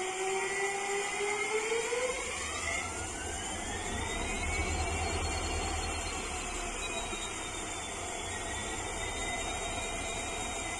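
WDG4D diesel locomotive's EMD 16-cylinder two-stroke engine starting up: a whine rising in pitch, the low engine rumble coming in about two seconds in, then a steady run with a high whine held over the rumble.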